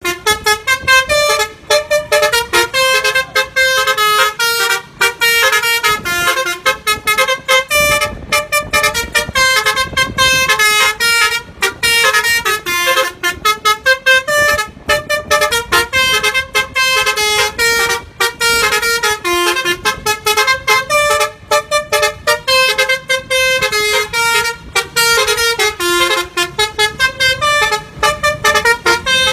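A telolet bus horn, the multi-tone musical horn fitted to Indonesian buses, playing a fast jingle of short notes that change pitch several times a second, with brief gaps between them.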